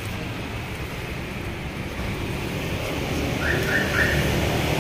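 Steady low rumble of a running car engine under an even background hiss, with three short high chirps a little past halfway.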